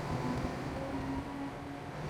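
Heavy earth-moving machinery's diesel engine running steadily, with a low rumble and a steady hum.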